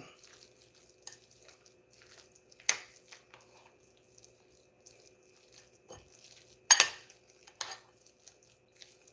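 A utensil stirring chicken salad with mayonnaise in a bowl, with scattered clinks against the bowl; the sharpest comes about seven seconds in, another near three seconds in.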